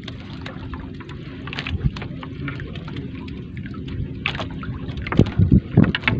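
Wet nylon gill net hauled by hand over the wooden side of a small boat: irregular rustling, drips and light knocks of net and floats against the hull, with louder knocks near the end.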